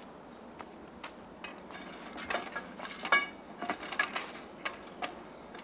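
Chain-link fence rattling and clinking as someone climbs over it. After a quiet first second and a half, there is an uneven run of sharp metallic clicks and knocks, some of them ringing briefly.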